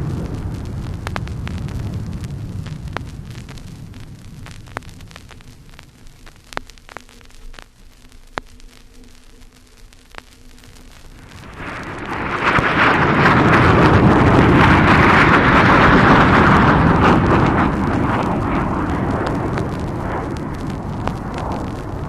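Vintage vinyl LP recording of US Air Force aircraft and ordnance, with record-surface clicks and crackle throughout. A low rumble dies away over the first several seconds; then, about twelve seconds in, a loud rushing roar swells quickly, holds for several seconds and slowly fades.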